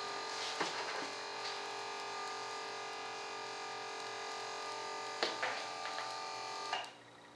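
Small battery-powered electric fuel pump on a fueling can running with a steady whine while pumping fuel into the model's tanks. It stops suddenly near the end, and a few light knocks from handling come through along the way.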